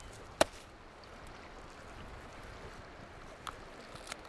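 One sharp knock of a wooden club striking a netted salmon's head on the gravel, over the steady rush of a river. Near the end come two faint clicks as shears cut the fish's gills.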